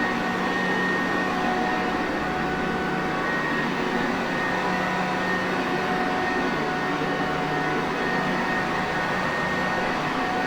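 Sanitaire Perfect vacuum cleaner running steadily: an even rush of air with a constant motor hum and a higher whine that never change.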